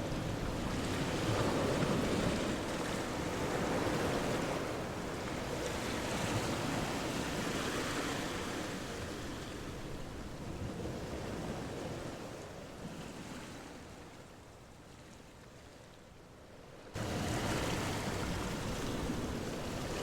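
A steady rushing noise with no tones, swelling and fading. It sinks quieter, then cuts suddenly back to a louder rushing noise about seventeen seconds in.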